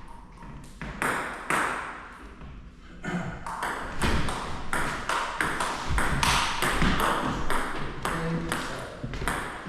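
Table tennis rally: the ball clicks sharply off bats and table. There are a few hits in the first seconds, then a quick, steady exchange of strokes from about three seconds in.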